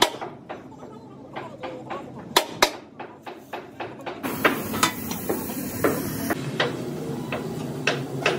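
Irregular sharp metallic taps and clanks, several a second: hammer blows on steel plate.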